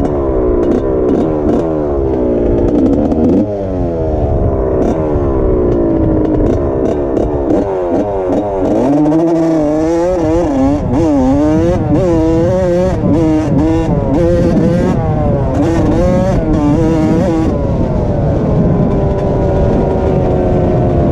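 Honda CR85 two-stroke dirt bike engine heard from on board while riding. The revs sweep up and drop back several times in the first few seconds as it goes through the gears, rise and fall quickly in the middle, then climb more steadily near the end.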